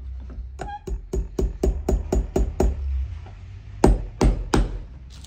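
A steady run of sharp knocks, about four a second, then three louder ringing knocks near the end.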